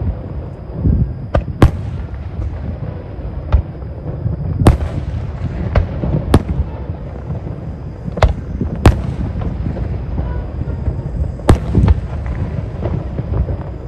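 Fireworks going off: about a dozen sharp bangs at irregular intervals over a steady low rumble.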